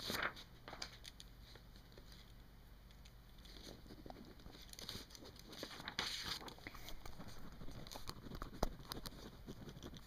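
Paper rustling and crinkling close to the microphone, with many small scattered taps and scratches; the rustling grows louder between about four and seven seconds in.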